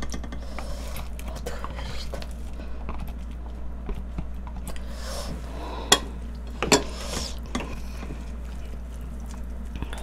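A silicone spatula stirring and pressing rice into a pan of soup, with scattered light clicks and two sharp knocks of utensils against the pan and bowl about six seconds in, over a steady low hum.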